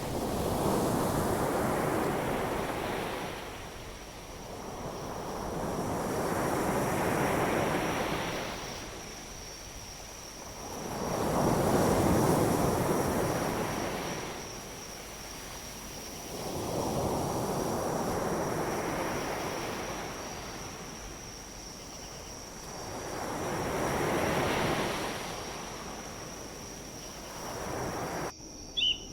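Wind gusting through tree leaves, rustling in slow surges that swell and fade about every five to six seconds, over a thin steady high tone. The rustling cuts off abruptly near the end.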